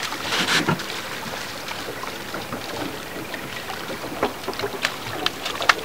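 A cownose ray splashing at the water's surface beside a boat hull as it is held for release. A burst of splashing comes at the start, then a steady wash of water with a few sharp slaps and drips between about four and six seconds in.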